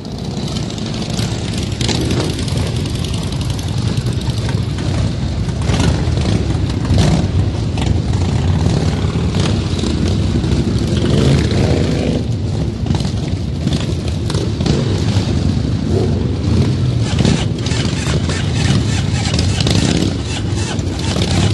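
Motorcycle engines running steadily, fading in at the start.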